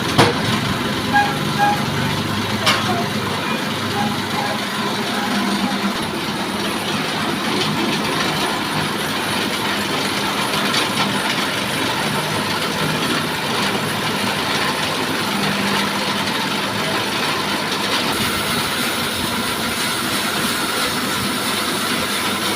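Sawmill machinery running steadily with a dense, even noise, with a few sharp knocks in the first few seconds.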